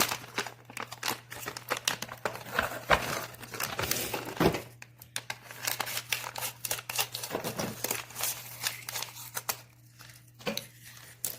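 Packaging crinkling and rustling as small items are handled and unwrapped, with a tear or two and small clicks and knocks, quieter for a moment near the end.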